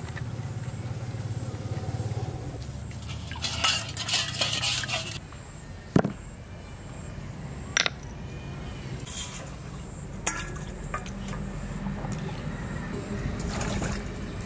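Kitchen handling noises: scattered clinks and knocks of clay plates and utensils, with a scraping rustle a few seconds in and one sharp knock about six seconds in.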